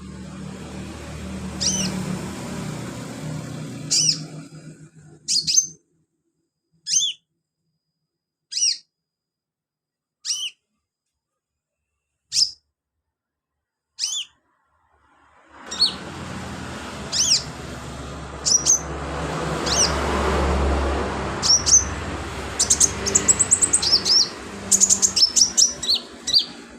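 Sunbird calling: sharp, high chips that drop in pitch, repeated every second and a half to two seconds. From about halfway in, the calls come faster and break into quick trills, over a steady background hiss and rumble.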